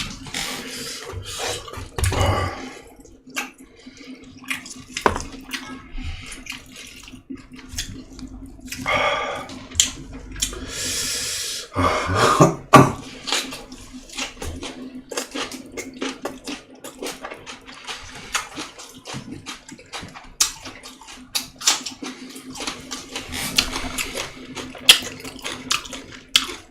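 Close-up eating sounds: wet chewing and smacking with many short clicks and a few louder wet bursts, over a faint steady hum.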